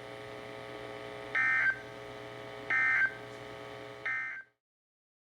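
Three short bursts of Emergency Alert System digital data tones, the End of Message burst sent after a weather warning, received over NOAA Weather Radio. The bursts come about 1.4 s apart over a steady radio hum, and the audio cuts off just after the third.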